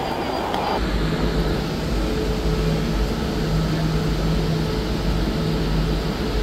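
Vehicle in motion: a steady deep rumble with a low hum that comes and goes, setting in abruptly just under a second in.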